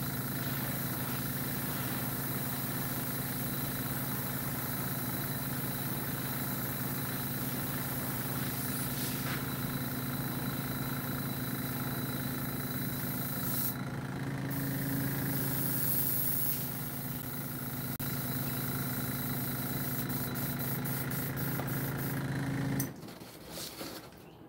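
Small airbrush air compressor motor running with a steady hum, cutting off abruptly near the end.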